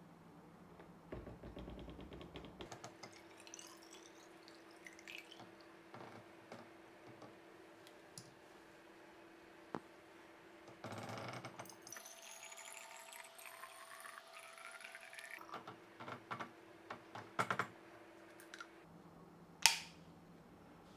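Ginger beer running from a plastic fermenter tap into a tall plastic hydrometer test jar, the pitch rising as the jar fills. Small clicks and knocks of glass and plastic being handled are heard throughout, with one sharp click near the end.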